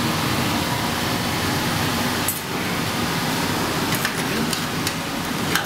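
Steady rushing noise of a commercial kitchen around a multi-basket pasta cooker at the boil. From about four seconds in come several light metal clicks as a utensil stirs in the cooker basket.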